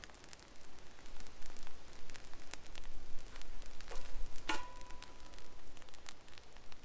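Small wad of toilet paper burning on the ground with faint, irregular crackling. About four and a half seconds in comes a light metallic clink that rings on briefly.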